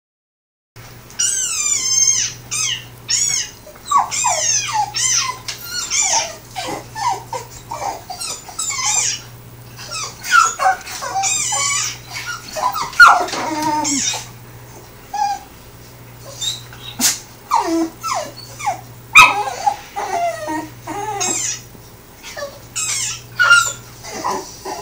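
A desert rain frog's shrill squeaks played from a TV, answered by a dog whining and yipping at it: a long run of short high pitched squeals and whines, some sliding up and some sliding down, starting about a second in, over a steady low hum.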